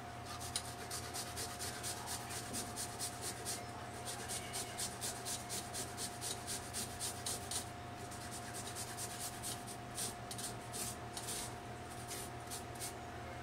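Small hand grater rasping as a piece of food is rubbed across it in quick, even strokes, about three a second. The strokes pause briefly partway through, then resume more unevenly. A steady faint hum runs underneath.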